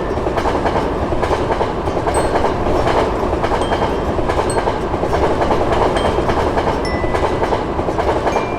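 Train passing at speed: a loud, steady rumble and clatter of wheels on rail that fades out just after the end.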